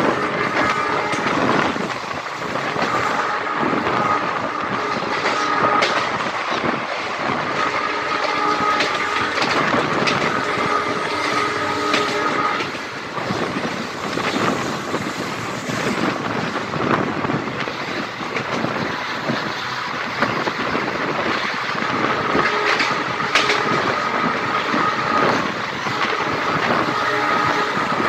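Indian Railways passenger coach running along the track, heard from its open doorway: a steady rumble of wheels on rails with clicks over the rail joints. A high steady tone comes and goes several times through it.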